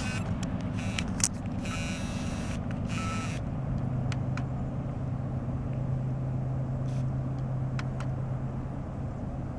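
ES44AH diesel locomotive running, a steady low drone that sets in about three and a half seconds in. A few short bursts of hiss come before it.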